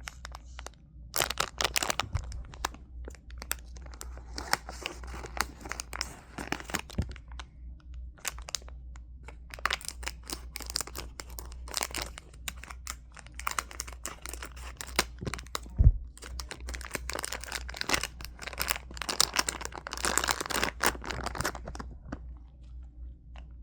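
Plastic packaging being cut, torn and crinkled open, a steady run of crackling rustles with one louder knock about two-thirds of the way through.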